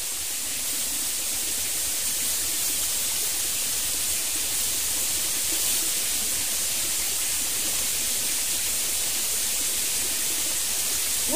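Steady, even hiss of running stream water.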